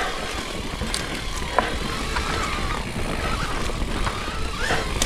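Steady, noisy rush of a mountain bike rolling along a dirt singletrack trail, with a few sharp clicks and rattles.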